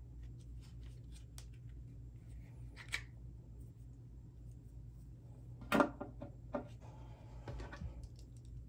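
Small polymer pistol weapon-mounted light being handled: light clicks, a sharp click about three seconds in as the light is switched on, then a knock of it being set down on a wooden table a little past halfway, a smaller knock and a short rubbing.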